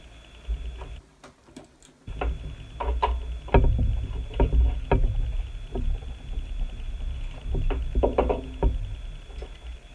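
Plastic LEGO bricks being handled and snapped together by hand, making a run of small irregular clicks and snaps with low knocks against the tabletop. A brief drop to near silence comes about a second in.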